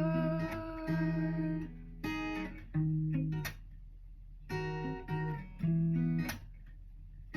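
Acoustic guitar playing an instrumental outro: short strummed chords with bass notes, in separate phrases with brief pauses between them. The last held sung note trails off in the first second and a half.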